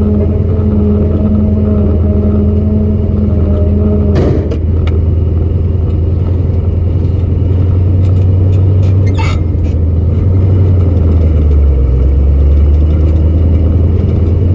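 Old pickup truck's engine running with a steady low drone; a higher hum in the sound stops with a clunk about four seconds in, and a few rattles follow around the nine-second mark.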